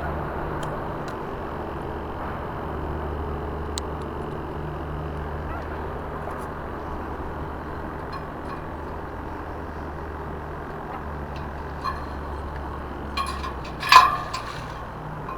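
A steady, low engine drone runs on under a wash of outdoor noise. About fourteen seconds in, a short burst of sharp clattering knocks is the loudest sound.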